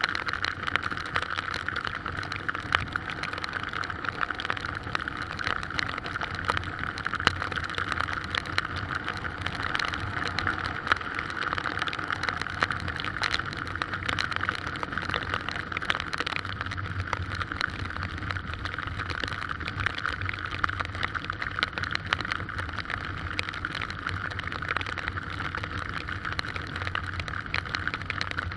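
Heavy rain falling steadily in strong wind: a constant hiss dense with small drop ticks, over a low rumble.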